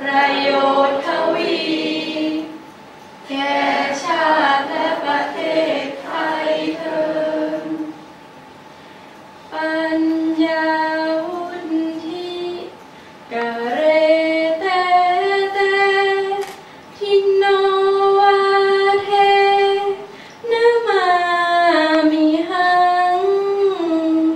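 A group of voices singing a slow Thai song in praise of teachers, unaccompanied, in five phrases of long held notes with short pauses between them.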